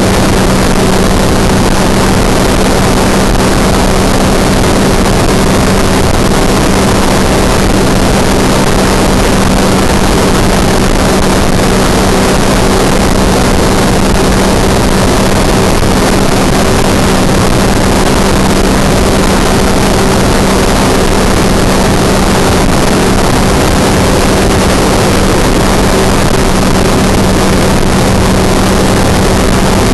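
Ultralight aircraft in flight: the engine and propeller drone steadily at constant power, with a constant hum and heavy wind rush over the open cockpit.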